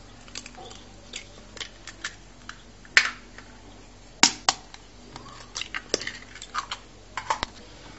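Eggs being cracked over a mixing bowl: sharp taps of eggshell, the loudest about three and four seconds in, with smaller clicks and taps of shell and fingers in between.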